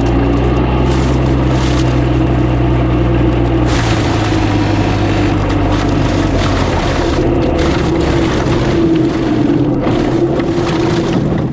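Fecon Bullhog forestry mulching head spinning at speed on an excavator, its carbide teeth grinding through brush, over the excavator's diesel engine under load. About four seconds in the steady low hum shifts and a rougher grinding noise takes over as the head bites into material.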